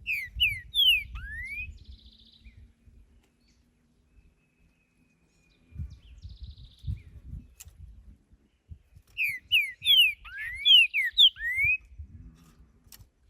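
Green-winged saltator (trinca-ferro) singing: two phrases of loud, clear whistled notes, one at the start and one about nine seconds in. Each phrase is a quick run of short down-slurred and up-slurred whistles. A low rumble runs underneath.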